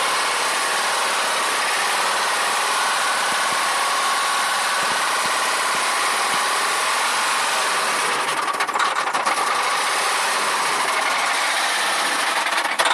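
Nissan Cefiro's VQ20 2.0-litre V6 engine running with a knock, which the owner takes for a sign that the engine is beyond repair. A rapid ticking shows more clearly about eight seconds in.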